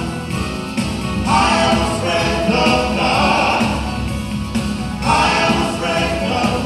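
Three male voices singing a gospel song in harmony into handheld microphones.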